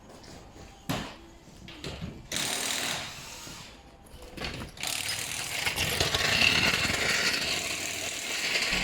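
Power tools at work in a tyre-fitting bay. A sharp click comes about a second in and a short burst of tool noise follows, then from about five seconds a longer, louder stretch of tool running.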